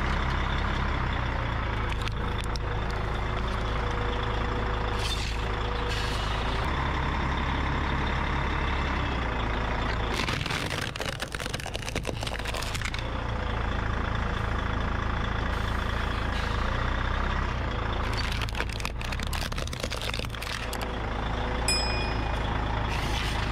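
Heavy truck's engine running slowly as its tyre rolls over and crushes plastic toys, with scattered cracks and snaps of breaking plastic and a hiss of air brakes partway through. A short high chime sounds near the end.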